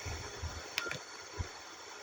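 A single button click with a brief high beep just under a second in, over low handling rumble: a key press on a Nokia N95 phone.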